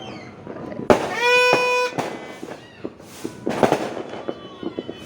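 Fireworks and firecrackers going off: scattered sharp bangs, the loudest about a second in. Just after it comes a steady horn-like tone lasting under a second.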